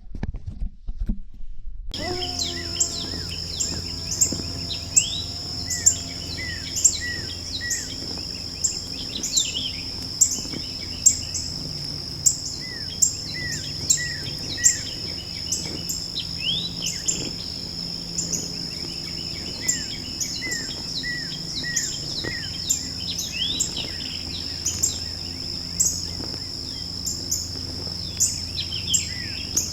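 Woodland morning chorus starting about two seconds in: many birds chirping and singing over a steady, high-pitched insect drone, with regularly repeated louder calls.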